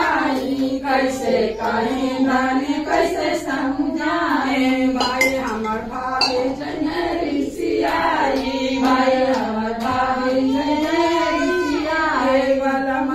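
A high-pitched voice singing a devotional Shiva bhajan, with long, held melodic lines that go on without a break.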